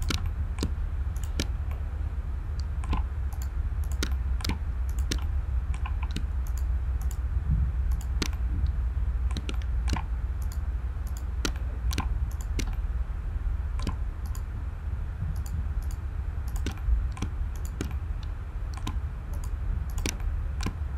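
Computer mouse button clicking at uneven intervals, roughly one to two clicks a second, while faces are shift-clicked one by one, over a steady low hum.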